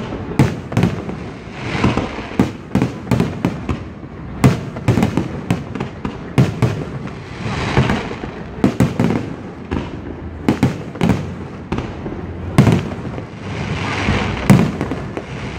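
Fireworks display: aerial shells bursting in quick, irregular succession, many sharp bangs with hissing stretches between them.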